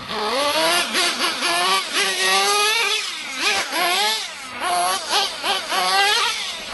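Radio-controlled off-road car's small engine revving up and down as it is driven, its pitch rising and falling in quick repeated sweeps.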